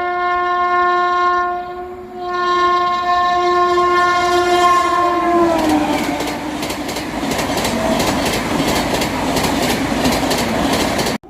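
An Indian Railways express train passing at high speed, about 130 km/h. Its horn sounds twice, the second blast long, and the pitch drops as the locomotive goes by. Then the coaches rush past with a steady clickety-clack of wheels over rail joints, which cuts off suddenly near the end.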